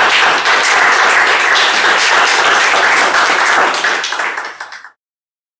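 Audience applauding, a steady patter of many hands clapping that cuts off suddenly about five seconds in.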